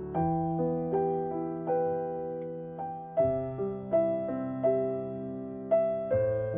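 Background piano music: a slow, gentle piece of single notes and chords, with a new note struck about every half to three-quarters of a second.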